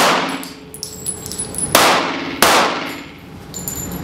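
Pistol shots fired on an indoor range: three shots, one at the start, one just under two seconds in and one about half a second later, each with a long echo off the range walls. Between and after the shots come light high metallic tinkles of spent brass casings landing on the concrete floor.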